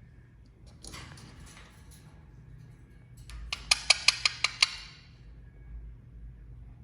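Indian ringneck parakeet giving a quick run of about seven short, sharp calls, some five a second, after a softer rasping sound a second or so earlier.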